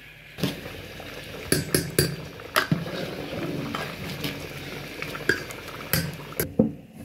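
A steel ladle stirs rice through boiling spiced chicken stock in a large metal pot. The liquid sloshes steadily, and the ladle gives repeated sharp clinks against the pot.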